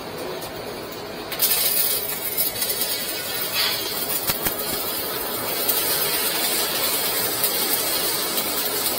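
Stick (MMA) arc welding: the arc strikes about a second and a half in, then holds a steady, crackling hiss as the electrode burns.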